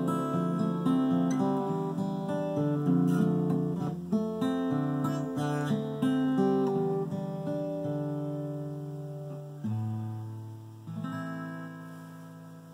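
Solo acoustic guitar fingerpicked: a flowing line of plucked notes over bass notes, thinning out and growing softer, then two final chords about ten and eleven seconds in, left to ring and fade.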